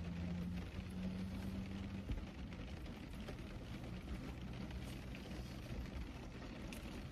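Quiet car-cabin background: a steady soft hiss with faint light pattering, typical of light rain on the roof of a parked car. A faint low hum during the first two seconds.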